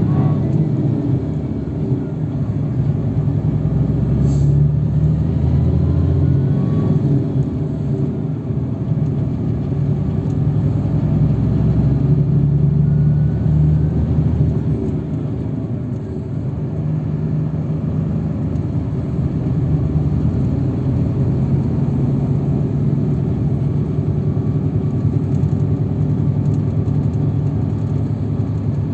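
A road vehicle on the move, heard from inside: steady engine drone and road rumble, swelling slightly now and then.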